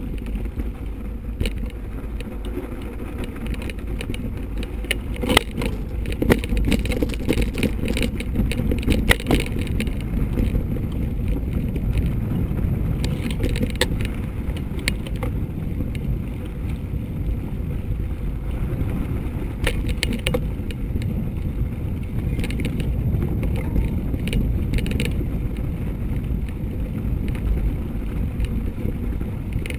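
A mountain bike rolling over a frozen, snow-dusted dirt track: a steady low rumble of tyres and wind on the microphone, with sharp clicks and knocks now and then as it rides over bumps.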